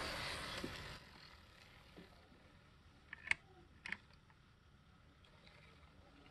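Z scale F7A model locomotive running along the track with a steady whirr, which drops away about a second in. Two sharp clicks follow near the middle, about half a second apart.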